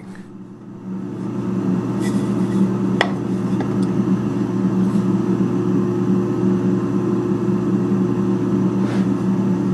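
Woodworking shaper with a Powermatic stock feeder mounted on it, running with no board in the cutter: a steady machine hum that builds over the first second or two, then holds, with a single click about three seconds in.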